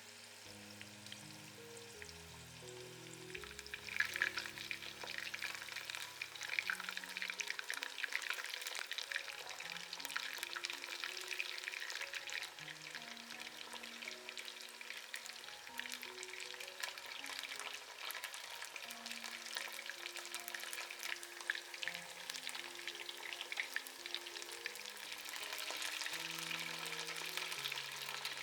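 Pieces of salt karaage (Japanese fried chicken) deep-frying in hot oil: a steady sizzle full of small crackles and pops, which grows louder about four seconds in.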